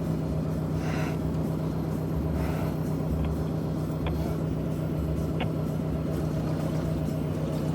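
Car running, a steady low hum with a pulsing rumble underneath, and a few faint ticks in the middle.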